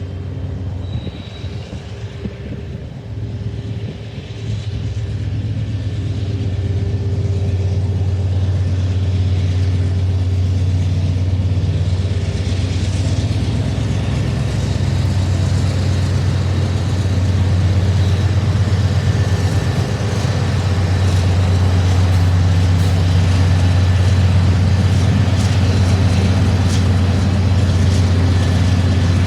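Diesel freight locomotive running, a steady low engine drone that grows louder over the first several seconds as the train comes near, then holds.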